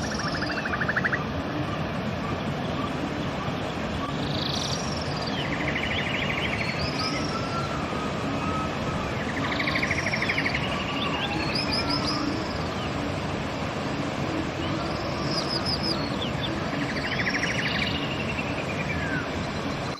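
River water rushing steadily, with songbirds singing over it in short repeated phrases every couple of seconds: arching whistled notes and quick trills.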